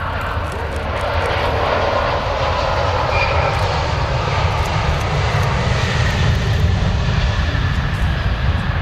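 Jet noise from the Airbus A350-900's Rolls-Royce Trent XWB turbofans as the airliner touches down and rolls out on the runway: a steady roar with a deep rumble, growing louder over the first few seconds.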